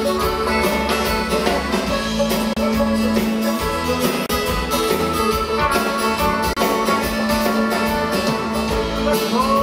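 Instrumental bluegrass break: fiddle and guitar playing over a steady plucked rhythm, with no singing.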